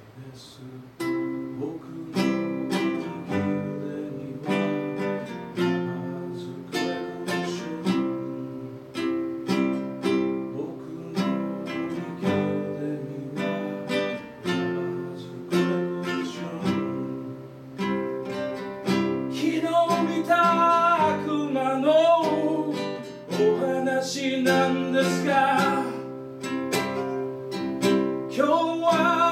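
A man sings live to his own strummed acoustic guitar, chords struck in a steady rhythm. His voice comes through most strongly in the last third.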